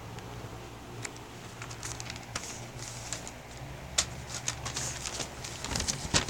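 Close handling noise: clicks and rustles of fingers on the phone and a sheet of notebook paper being moved near the microphone, over a steady low hum. The noises come more often from about four seconds in, with a loud knock near the end.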